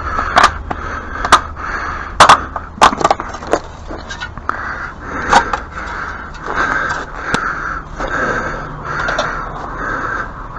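Sharp knocks and clinks of broken brick chunks being cleared away, about seven of them, most in the first four seconds.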